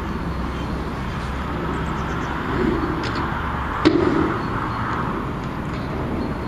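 Steady background of distant city traffic, with two sharp clicks about three and four seconds in.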